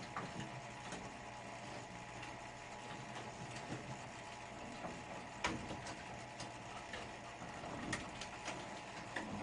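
A steady, quiet machine hum with a few sharp clicks and taps, the clearest about five and a half and eight seconds in.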